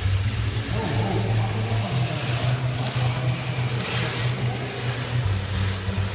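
Large-hall din with a steady low hum whose pitch shifts in steps twice, over a constant hiss that swells briefly about four seconds in.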